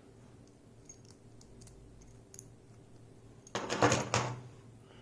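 Small metal lock parts from a gutted pin-tumbler cylinder being tipped out and clattering onto a surface. A few faint ticks come first, then a brief burst of clicks and rattling about three and a half seconds in.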